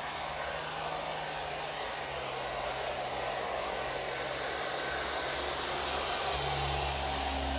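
HO scale model trains running on track: a steady whir of the locomotive motors with a low hum and the rumble of wheels on rail, the hum getting a little stronger near the end.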